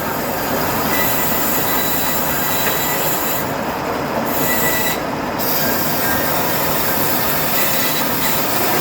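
Sawmill band saw running through wood: a loud, steady noise with a faint high whine.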